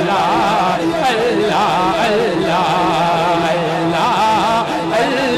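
A voice singing an ornamented naat melody in wavering, melismatic phrases over a steady held drone.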